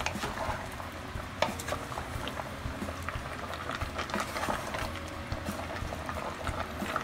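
Wooden spatula stirring a thick stew of beef, potato and carrot chunks in a pot, with irregular scrapes and clicks against the pot.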